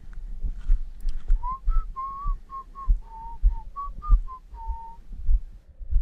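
A person whistling a short tune: about a dozen clear notes around the same middle pitch, each slightly gliding, stopping about a second before the end. Under it, regular low thuds of footsteps on soft sand.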